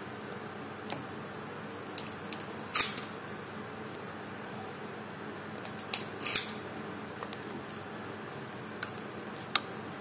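Derya Carina CMX-100 shotgun being handled before firing: scattered light metallic clicks and two louder short clacks, about three seconds in and again past six seconds.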